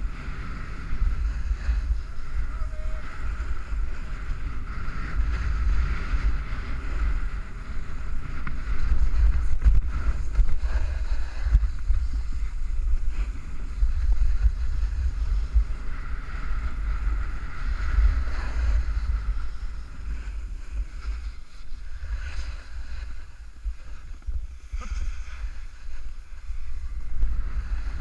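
Wind buffeting the microphone of a camera worn by a snowboarder riding downhill, a heavy rumble with the hiss of the board sliding over packed snow.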